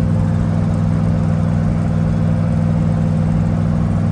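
Twin-turbo race car's engine droning steadily at constant highway cruising speed, heard from inside the stripped cabin.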